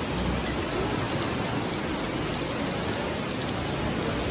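Steady tropical-storm rain falling on an open-air swimming pool and its wet paving.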